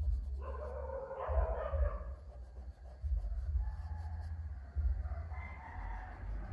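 An animal call lasting about a second and a half, followed by a fainter one near the end, over a steady low rumble.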